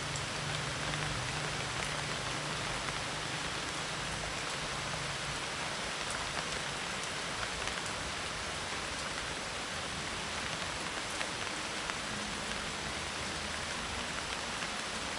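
Medium tropical rain falling steadily, with many individual drops ticking on a dried-leaf roof.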